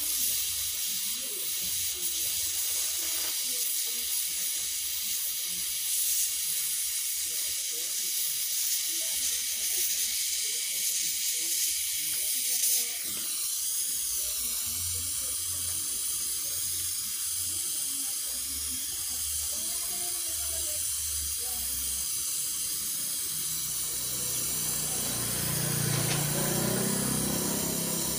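LPG-oxygen welding torch flame hissing steadily as it melts copper in a brick mould. About 13 seconds in the sound changes abruptly and a weaker steady hiss carries on.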